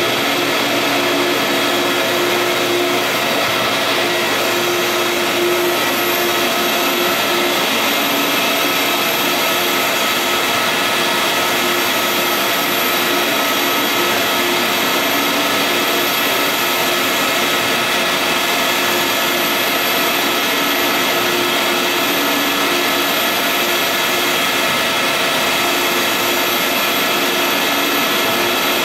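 Large-format UV-curing printers running: a steady machine whir of fans and blowers with a constant hum.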